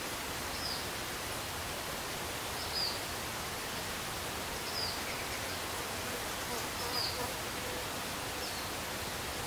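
Steady outdoor background hiss, with a short high chirp repeating about every two seconds.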